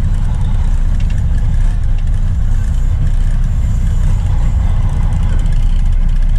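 A truck's engine running with a steady low rumble.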